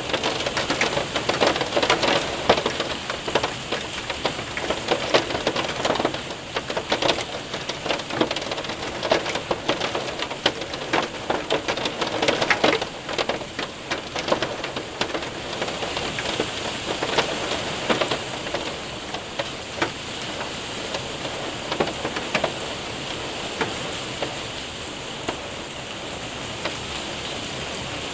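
Hail and rain hitting a window and roof: a steady patter with many sharp ticks of hailstones, heavier in the first half and easing off towards the end.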